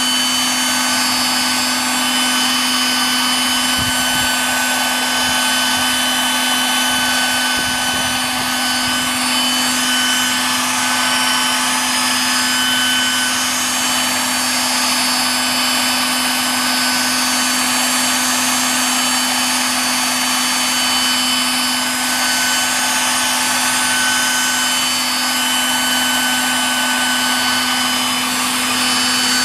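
Radio-controlled scale MD900 model helicopter hovering, its rotor spinning at about 1300 rpm head speed: a steady hum with a constant high-pitched whine over it.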